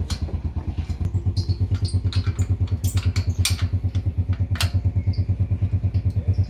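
Small engine idling with an even, fast pulsing beat of about ten pulses a second, louder from about a second in, with scattered light clicks and taps over it.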